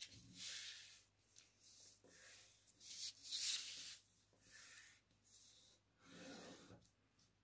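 A sheet of paper rustling and rubbing under the hands as it is slid, turned and pressed flat with the fingers, in about six short bursts.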